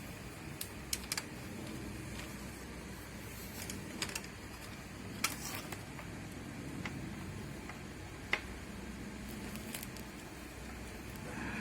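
Scattered light clicks and taps of small parts being handled, about seven in all at uneven intervals, over a steady low hum.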